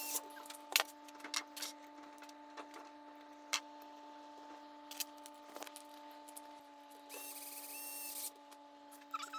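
Scattered light clicks and rubbing of small plastic 3D-printer parts and cables being handled and fitted together, over a steady faint hum. A short hiss comes in about seven seconds in.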